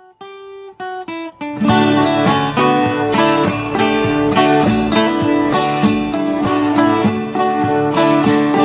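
Instrumental music on acoustic guitar. A few single plucked notes climb in pitch, then steady full strumming comes in about a second and a half in.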